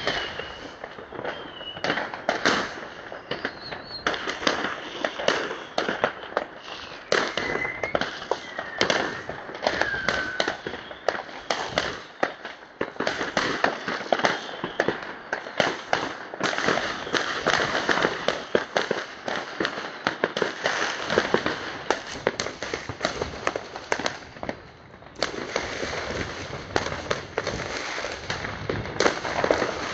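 Fireworks going off: a dense, continuous run of bangs and crackles, with a few whistles that drop in pitch in the first ten seconds or so.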